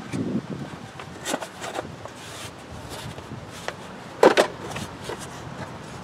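Plastic engine shroud of a Briggs & Stratton twin-cylinder engine being handled and pressed into place: scattered clicks and knocks, the loudest a sharp knock about four seconds in.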